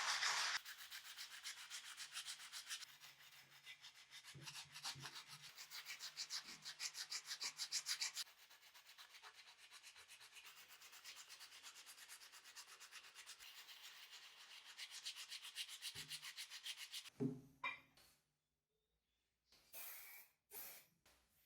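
Hand sanding of the slicer's rusty metal parts: fast, even back-and-forth rubbing strokes that get quieter about eight seconds in and stop near the end, after a loud hiss that cuts off just after the start.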